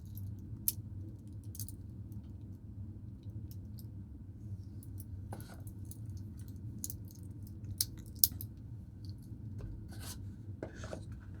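Small scattered clicks and rustles of a Heimdallr Monster dive watch's band being handled and fastened around a wrist, over a steady low hum of room tone. Two sharper clicks stand out about eight seconds in.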